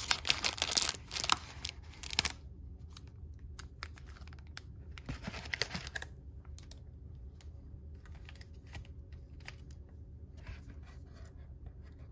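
Wrapping being torn and crinkled off a trading card box, in rustling bursts over the first two seconds and again about five seconds in, with scattered small clicks and rustles between and after.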